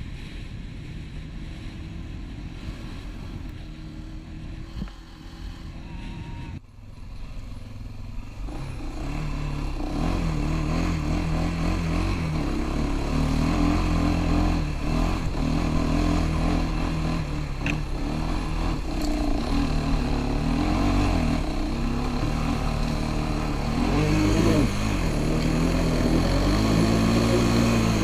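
Wind buffeting the microphone with a sport quad's engine faint beneath it. Then, after a sudden cut about six and a half seconds in, the quad's engine runs loud, its pitch changing with the throttle, and revs up and down near the end.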